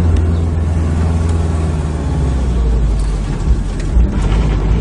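Steady low rumble of a car engine and road noise, with two brief bumps about three and a half seconds in.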